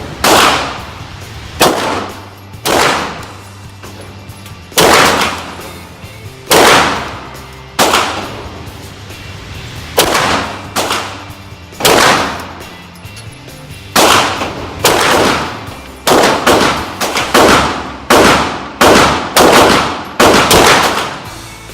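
Beretta M9A3 9mm pistol being fired, about twenty shots, each with an echoing tail. Deliberate single shots a second or two apart give way to a quicker string of about two shots a second near the end.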